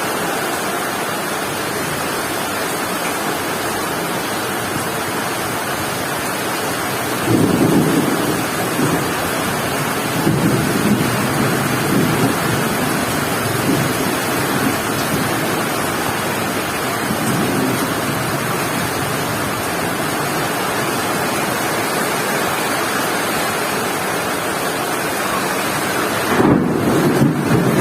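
Heavy rain pouring with strong wind, a steady rush that swells louder several times, most sharply about seven seconds in and near the end.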